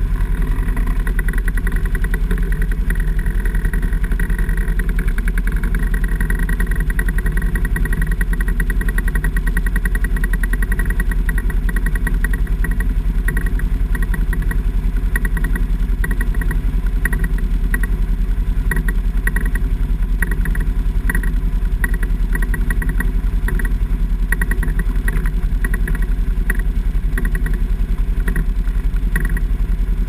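Off-road engines running steadily at low trail speed: the side-by-side UTV carrying the camera and two ATVs ahead crawling up a wooded trail. Short high-pitched squeaks come and go irregularly through the second half.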